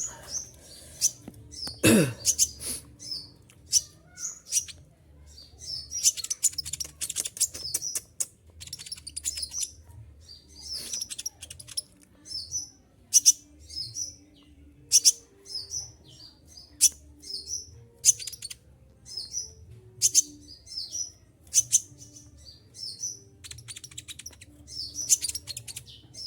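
Brown-throated sunbird (konin) calling hard: sharp, high, piercing chirps and quick chattering runs, repeated in short clusters over and over.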